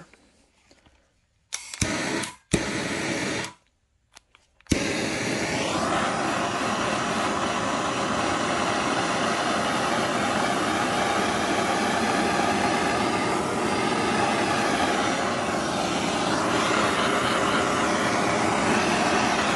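Trigger-start propane torch burning with a steady roaring hiss. Two short bursts of it come first, then a click about 5 s in, after which the flame burns on evenly.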